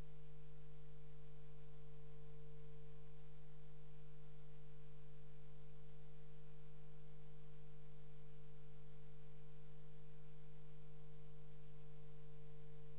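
Steady electrical hum: a low tone with a fainter higher one, unchanging throughout.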